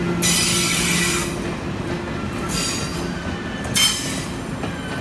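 Passenger coaches of a locomotive-hauled train rolling slowly into a station, wheels squealing on the rails in repeated high-pitched screeches: one about a second long at the start, shorter ones around the middle and near the end. A steady low hum and rumble runs under them.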